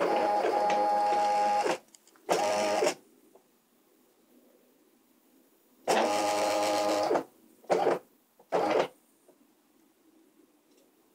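Stepper motors of a home-built CNC machine driving its axes in five separate moves, each a steady whine of several tones. The first and third moves last over a second, the second is shorter and the last two are brief, with quiet pauses between them.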